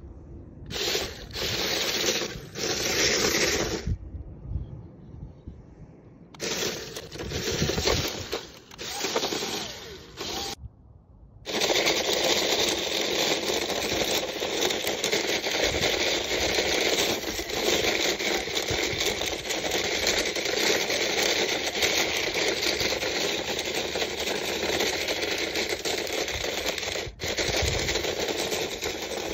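Radio-controlled toy Toyota Land Cruiser's segmented roller wheels scraping and crunching over the ground. It goes in stop-start bursts over dry dirt and brush at first, then from about twelve seconds in there is a continuous crackly crunching of loose gravel stones under the wheels.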